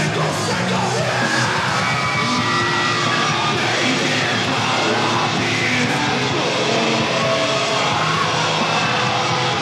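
Extreme metal band playing live with yelled vocals, heard as a low-quality mobile-phone recording made from the audience in a bar.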